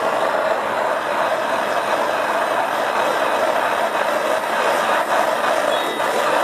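Propane torch burning steadily: a constant rushing noise from the flame as it is played along a bamboo stick to heat-treat it.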